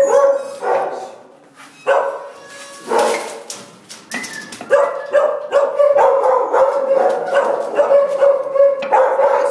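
A pit bull vocalizing: a few short yips in the first few seconds, then a long, drawn-out whine from about halfway on.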